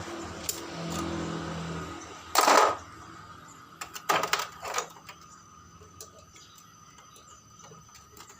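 Metallic clatter and clinks: a loud short clatter about two and a half seconds in, a quick run of sharp clicks a second and a half later, then scattered lighter clicks.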